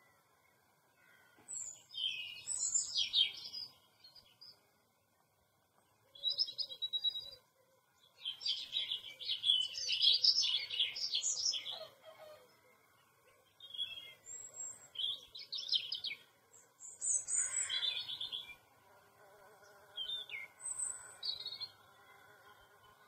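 Small birds chirping and twittering in bursts of high-pitched song, each lasting a second or a few seconds, with short quiet gaps between.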